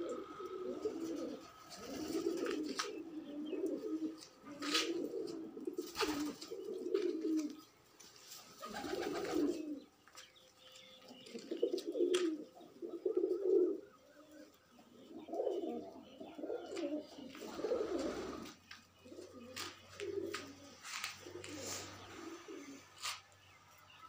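Domestic pigeons cooing in repeated low phrases with short gaps between them, with a few sharp clicks in between.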